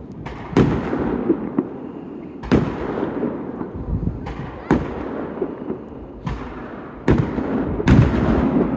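Fireworks display: aerial shells bursting with a loud bang every two seconds or so, five in all, with a continuous rumble and smaller pops between them.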